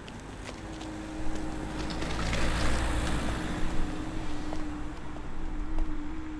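A vehicle passing by, a low rumble and rush of noise that swells about two seconds in and then eases off, over a steady held tone.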